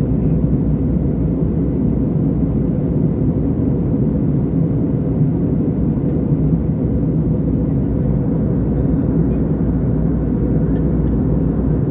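Steady low drone of an airplane in flight, engines and rushing air, holding level without rising or falling.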